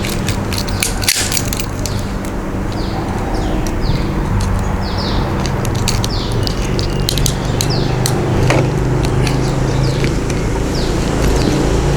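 Scattered sharp clicks and snaps of a hand crimping tool and F-type connectors being worked onto RG6 coax cable, over a steady low hum. Short high falling chirps repeat every second or two.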